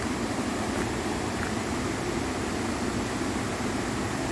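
Steady rushing roar of a waterfall: an even, unbroken hiss of falling water.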